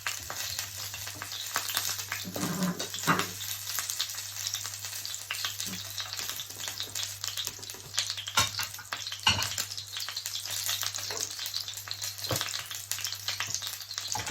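Salmon frying in a pan, a steady sizzle with a few sharp clicks and knocks spread through it.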